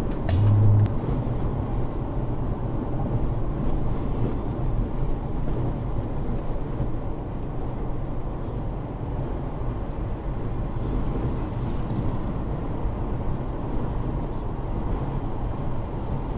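Steady road and tyre noise with a low engine hum inside a Mazda CX-5's cabin cruising on an expressway, picked up by a dashcam microphone. A short low hum sounds in the first second.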